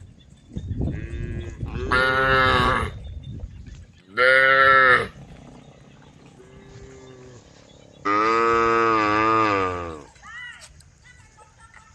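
Cattle mooing: three loud moos about two, four and eight seconds in, the last the longest at about two seconds, with fainter lowing between them.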